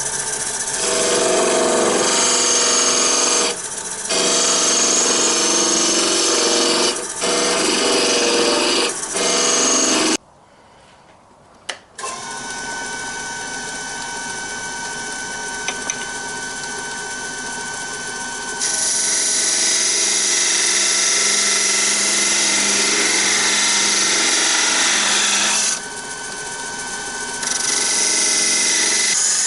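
Wood lathe spinning a wooden blank while a hand chisel hollows it out: spells of loud cutting noise broken by short pauses. About ten seconds in the sound drops away for a couple of seconds, then the lathe runs with a steady hum until the cutting starts again, twice more.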